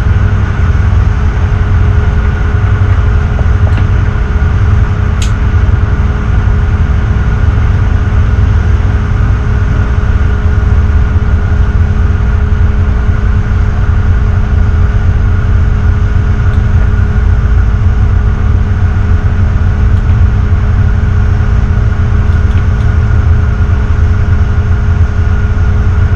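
Tugboat's diesel engines running steadily under way: a loud, even, deep rumble with a constant hum riding on top.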